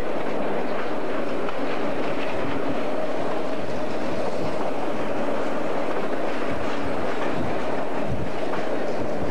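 Diesel-hauled train under way, heard from on board: a steady running rumble of the rolling cars and wheels on the rails, with a few low knocks in the second half.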